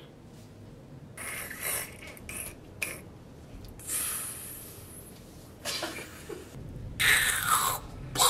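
Mouth-made sound effects: a few short breathy puffs and hisses, then a louder rushing blast about seven seconds in that falls in pitch, an imitation of an explosion or impact.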